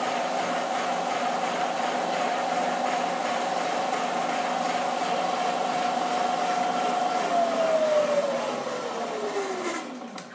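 Milling machine spindle running with a steady whine while tapping a quarter-inch UNC hole, then switched off about seven seconds in and winding down, its whine falling in pitch as it slows.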